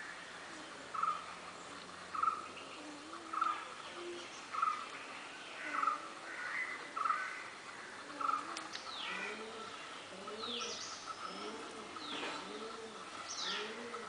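Birds calling: a short, clear note repeated a little more than once a second for the first half, then low rising-and-falling notes and a few quick high calls that fall in pitch.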